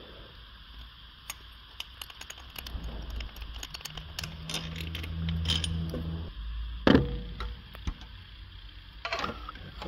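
Small metal clicks and rattles of hand tools and fittings being handled under a car. A low hum runs for a couple of seconds in the middle, and a sharp knock comes about seven seconds in.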